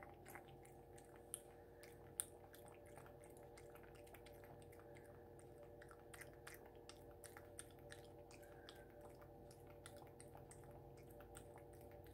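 Domestic cat lapping water from a glass fishbowl: faint, quick wet ticks, several a second, one per lap of the tongue.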